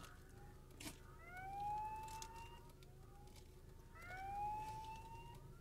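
Level-crossing warning siren sounding, faint through the car: a rising whooping tone that repeats about every two and a half seconds.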